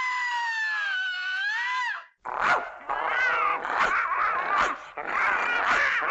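A dog: one long high whine that wavers near its end and stops about two seconds in, then, after a brief break, a run of short yelps and whimpers.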